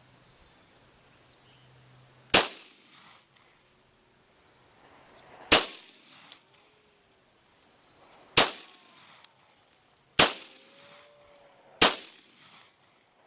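Five shots from a Glock 40 10mm pistol, fired one at a time, each with a short trailing echo. The first three come about three seconds apart and the last three closer together.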